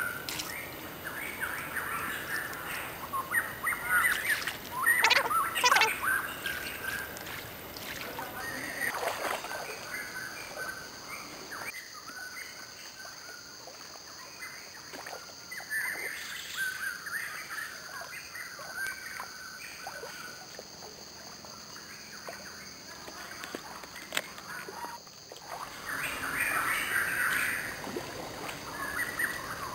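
Birds calling and chirping in forest along a stream, with a steady high-pitched drone coming in about eight seconds in.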